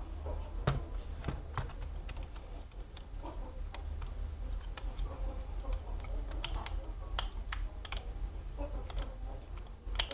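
Irregular small clicks and taps of hand tools and plastic and metal parts being handled while taking a laptop apart to get at its hard drive, over a low hum.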